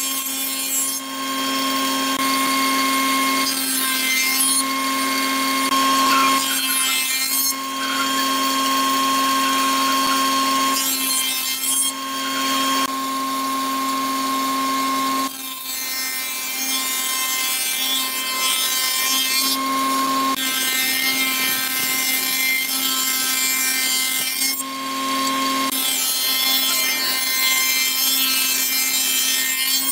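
Spindle shaper running with a Co-Matic power feeder pushing boards past the cutter, which profiles one board after another. Under the steady machine whine, the cutting noise comes in stretches of a few seconds, dipping briefly between boards.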